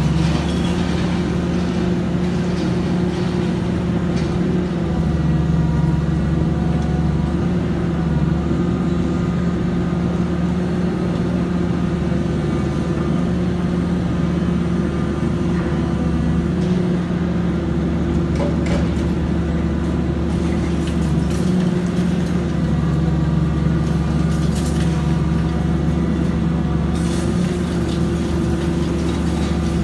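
Large Komatsu high-reach demolition excavator's diesel engine running steadily under load as it works its boom, with a few faint knocks later on.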